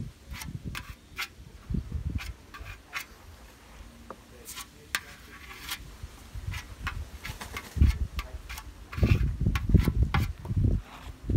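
Plastic filler spreader scraping body filler off a cardboard mixing board and across a panel: a run of short sharp clicks and scrapes. Dull low rubbing from the cardboard and handling, loudest near the end.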